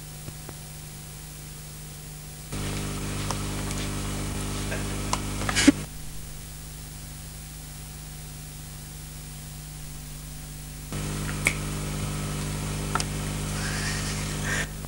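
Steady hiss and hum of an analogue videotape soundtrack. Twice, for about three seconds each, it jumps louder, with a stronger hum and a few sharp clicks, then drops back.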